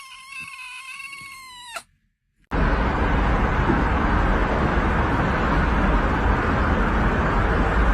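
A cat gives one long, drawn-out meow that breaks off suddenly. After a short gap, a loud steady rushing noise with no clear pitch starts and carries on.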